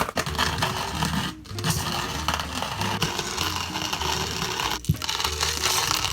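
Small hand coffee grinder crushing whole beans with a steady scratchy grinding, pausing briefly twice, over background music.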